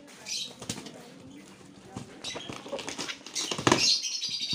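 Plastic bags and carton packaging being handled and rustled as a carton of bagged aquarium fish is unpacked, with scattered crinkles and small knocks, loudest near the end.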